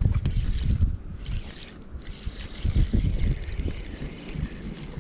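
Wind buffeting a body-worn camera's microphone: a low, gusty rumble that swells and drops irregularly.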